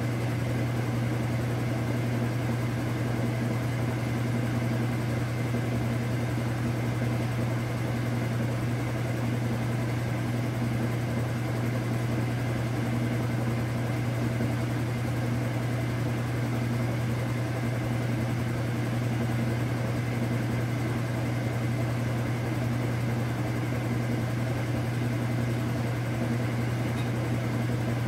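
KitchenAid Superba KAWS850LT1 top-load washing machine running a full load, with a steady, unbroken motor hum and a constant whirring of the turning tub.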